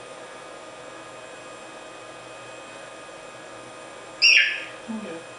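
Synthesized screech of an interactive digital bird puppet played through speakers, triggered when the performer opens her hand: one short, loud, shrill squawk a little after four seconds in. A steady electronic fan hum underneath.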